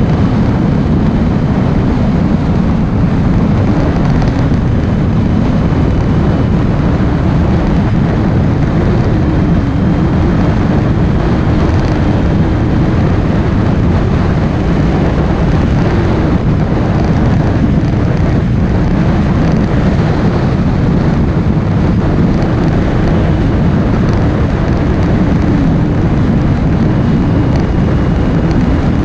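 Steady rush of wind and road noise on a motorcycle-mounted microphone while riding at speed, with the motorcycle's engine running under it.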